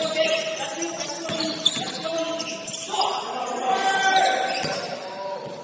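Live basketball game sound in a gym: a ball bouncing on the court, with players' voices and other game noise around it in the hall.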